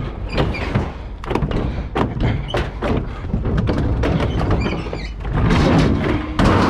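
Scrap being loaded and shifted on a truck: a run of knocks and thunks, with a louder scraping stretch near the end.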